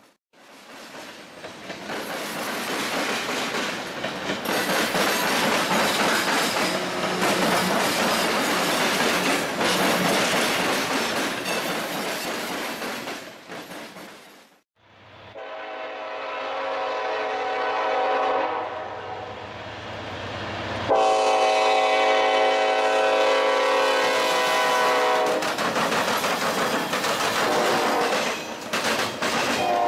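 Freight cars rolling past with steady wheel-on-rail noise; after a brief break, a train horn sounds a chord in two long blasts of about five and four seconds, the second louder, over the noise of passing cars.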